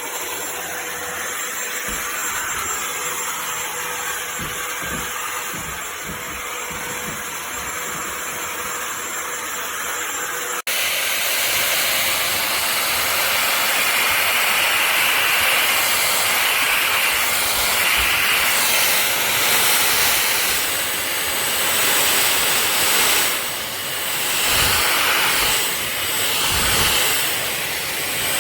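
Cordless stick vacuum running with a steady whine and rush of air. About ten seconds in the sound jumps abruptly louder and brighter, and near the end it dips and swells a few times.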